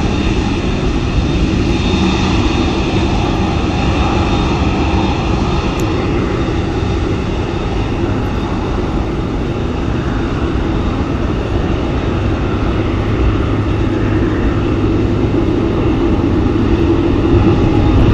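Boeing 747-8 freighter's four GEnx turbofans running at taxi power: a steady jet rumble with a high whine that fades after about six seconds as the jet taxis away.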